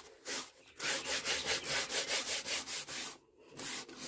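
Lint-free cloth rubbed briskly back and forth over a birch wood panel coated with dried cold wax medium, quick rhythmic strokes at about five a second, with a short pause about three seconds in.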